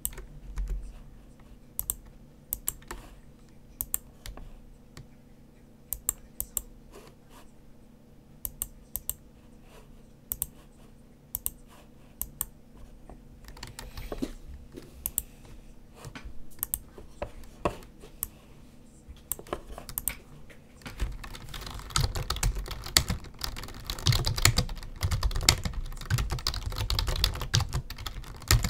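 Typing on a computer keyboard: sparse, scattered clicks at first, then fast continuous typing beginning about two-thirds of the way through.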